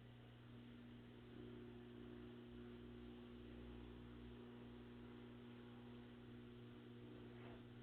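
Samsung front-load washing machine running quietly: a faint, steady low hum made of several even tones, with no squeal or knocking.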